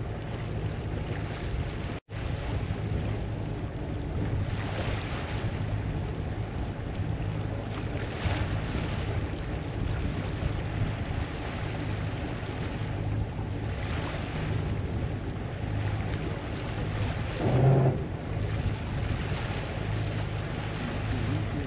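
Water rushing and washing along a sailboat's hull in surges every few seconds, with wind on the microphone over a steady low hum. There is one brief louder burst near the end.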